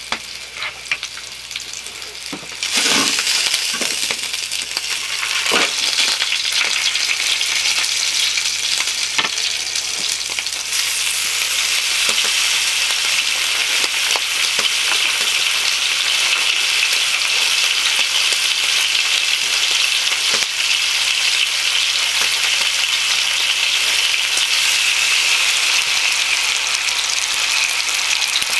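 Bacon frying in a skillet, a steady sizzle that gets louder about three seconds in and hisses harder from about eleven seconds in. A few short knocks in the first several seconds.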